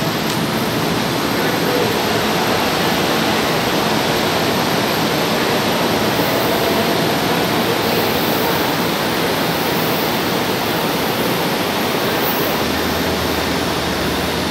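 Steady rushing noise of São Paulo Metro trains running through an underground station, echoing off the platform hall. A low hum joins near the end as a train pulls in.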